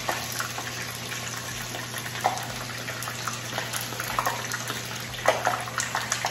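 Food frying in hot oil: a steady sizzle with small crackles and pops scattered through it.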